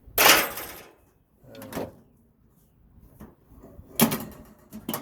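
Sheet-metal toaster oven casing handled during teardown: a loud scraping rush at the start, then sharp metal clanks about four seconds in.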